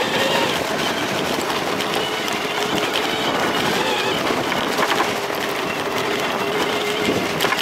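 Electric dirt bike ridden at speed along a snowy, rutted track: steady wind on the microphone and tyre noise, with a faint steady whine from the electric motor.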